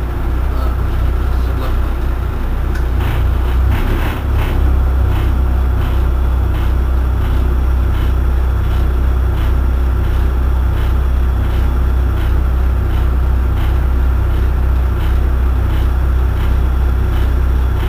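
Irisbus Citelis 18 articulated city bus engine idling at a standstill, a steady low hum that rises slightly about four seconds in.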